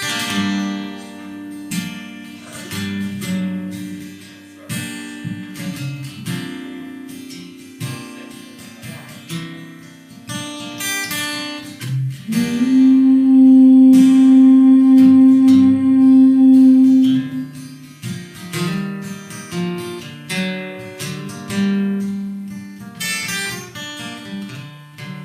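Acoustic guitar playing the instrumental intro to a country song, picked and strummed, with a loud held note in the middle.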